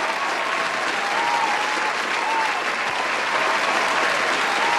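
Crowd applauding steadily, with a few cheers rising above the clapping.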